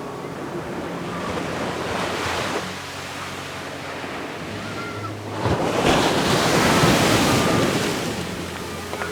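Ocean waves breaking on a beach. A smaller wave swells and falls away about two seconds in, then a bigger one breaks about five and a half seconds in, washes up loudly and fades.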